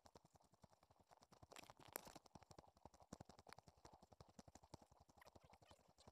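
Very faint, rapid crackling clicks: handling noise and footfalls picked up by a phone carried along a forest trail.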